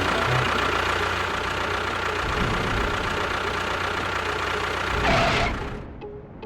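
A small motor or engine running steadily, rising briefly about five seconds in and then dying away.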